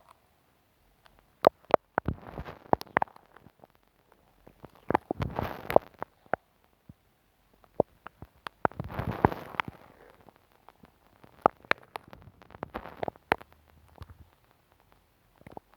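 Glue stick rubbed directly on the microphone: four separate swells of sticky smearing, with sharp tacky clicks scattered between them.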